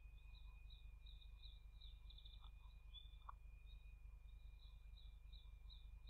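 Near silence over a steady low electrical hum and a constant high whine, with faint, quick high-pitched chirps of small birds. A short, slightly louder call comes about three seconds in.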